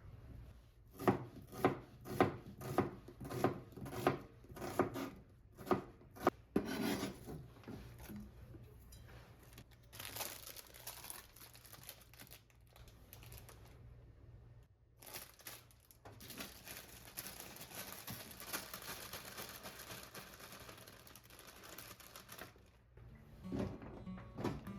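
Knife chopping vegetables on a wooden cutting board, about ten even strokes, followed by longer stretches of rubbing and rustling as the vegetables are handled.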